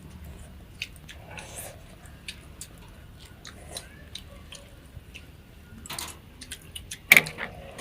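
People eating hot pot skewers: chewing, with scattered light clicks of utensils and skewers against bowls, and one louder knock about seven seconds in.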